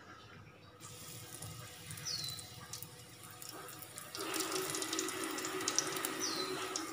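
Egg-and-flour-battered greens leaf deep-frying in hot oil in a wok: steady sizzling with crackles, growing louder about four seconds in. A bird gives a short falling chirp twice in the background.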